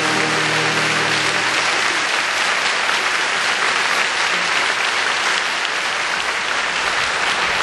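Audience applauding steadily, with the song's last held chord dying away under the clapping in the first second and a half.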